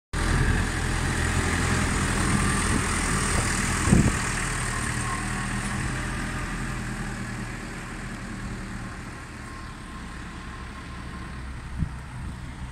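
Ursus C-350B 47 hp compact tractor's diesel engine running steadily as the tractor drives off, getting quieter as it moves away. A sharp knock about four seconds in.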